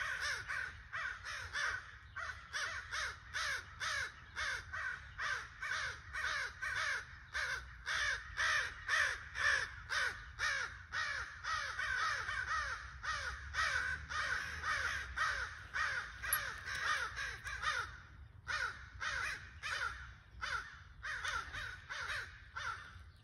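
Crows cawing in a rapid, steady run of about two to three caws a second. The calls break off briefly and come more sparsely near the end.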